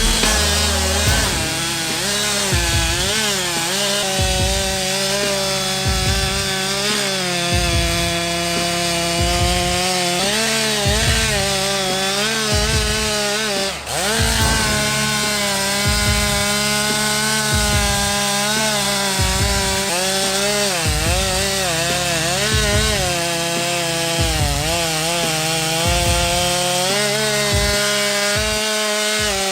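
Chainsaw cutting wood, its engine pitch rising and falling as the chain bites and frees up, with a brief drop in pitch about halfway through.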